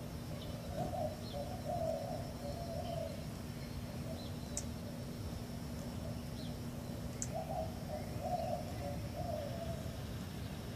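A dove cooing in two phrases of several notes, the first about a second in and the second about seven seconds in. Faint short chirps of small birds sound over a steady low background hum.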